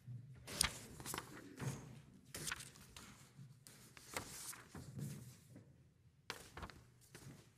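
Faint rustling of paper sheets being handled at a lectern, with scattered small knocks and clicks close to the lectern microphone.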